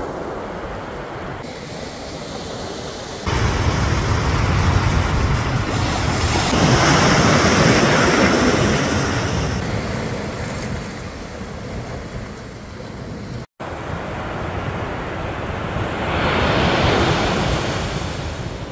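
Ocean surf breaking and washing up the beach, with wind buffeting the microphone. The rush swells twice, once through the middle and again near the end, and the sound cuts out for an instant about two-thirds of the way through.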